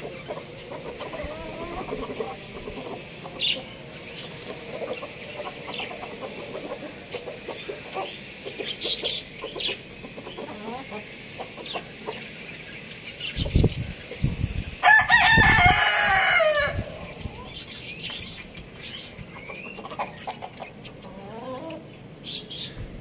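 Chickens clucking, then a rooster crows once, loud and about two seconds long, about fifteen seconds in, falling in pitch at its end. A few low thumps come just before the crow.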